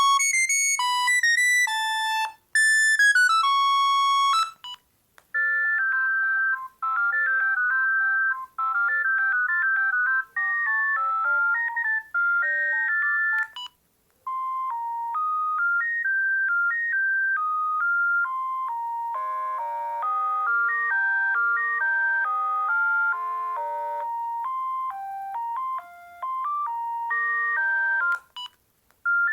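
Built-in ringtones of a Panasonic EB-GD93 mobile phone playing one after another as electronic beeping tunes. A buzzy tune stops about four seconds in, a quicker melody runs to about halfway, and after a short pause a longer tune plays almost to the end, with the next one starting right at the end.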